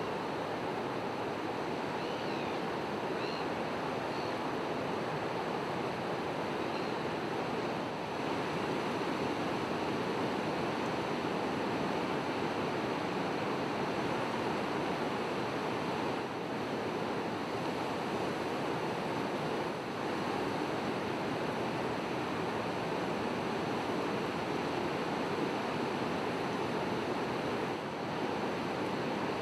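Steady rush of breaking surf and rough water on a river bar, with a few faint high chirps about two to three seconds in.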